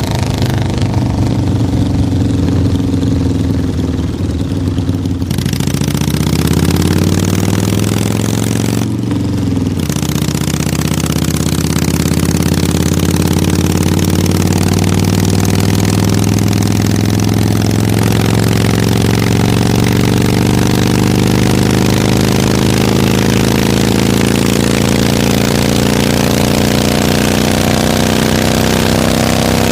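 Harley-Davidson V-twin motorcycle engine running under way. Its pitch climbs about five seconds in and dips briefly near nine seconds, then rises slowly and steadily as the bike accelerates.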